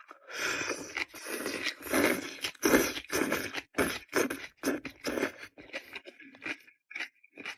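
Person eating close to the microphone: loud, irregular wet chewing and crunching, several bites a second.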